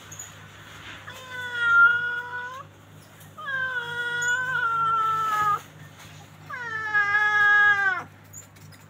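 An animal giving three long, drawn-out calls, each holding a steady pitch for about one and a half to two seconds and dropping at the end.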